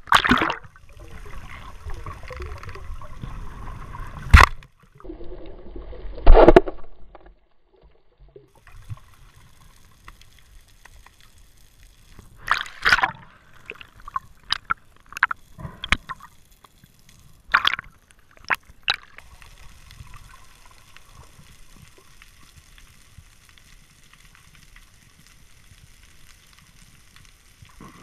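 Sea water sloshing and splashing at the surface, with two loud splashes about four and six seconds in. Then the quieter, muffled sound of being underwater, with scattered sharp clicks and knocks, several close together around the middle.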